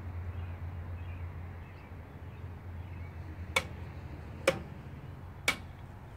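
Three sharp clicks about a second apart, over a low steady hum that eases off a couple of seconds in.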